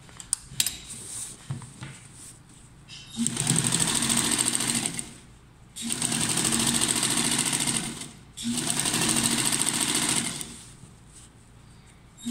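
Electric sewing machine stitching in three runs of about two seconds each, stopping briefly between them. Before the first run come a few sharp clicks and the rustle of fabric being handled.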